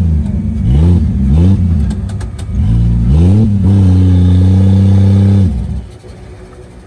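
Off-road 4x4 mud truck's engine revved in several quick rising-and-falling blips, then held at high revs for about two seconds before dropping away suddenly.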